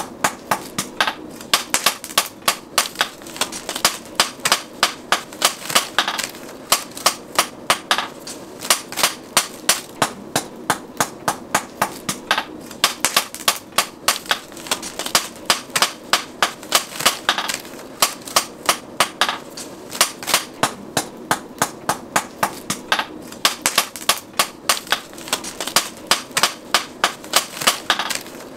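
A hammer striking metal in a quick, steady rhythm, about three or four sharp blows a second, in runs broken by short pauses every few seconds.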